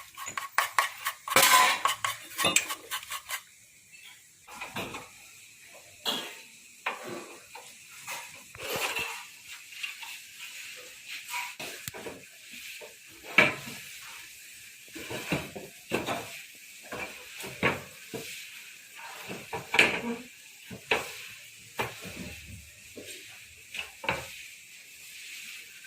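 Irregular metallic clinks and taps of hand tools and metal parts being handled while a motorcycle is worked on. There is a dense clatter in the first few seconds, then single clinks about a second apart.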